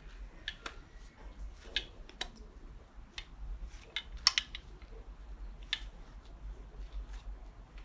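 Hand tools and small moped engine parts being handled on a work table: scattered light metallic clicks and clinks at irregular intervals, with one sharper knock about four seconds in.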